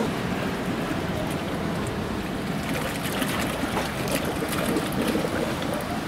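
Hot-spring water running and splashing steadily in a stone hand-bath fountain, over a low street rumble.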